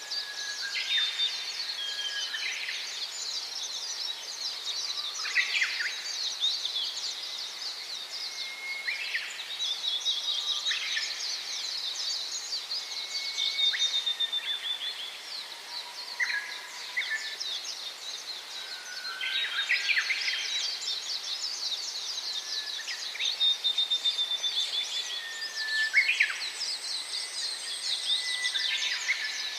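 A chorus of many small birds chirping continuously in dense, high twittering. Separate short calls and brief whistles break through every second or two.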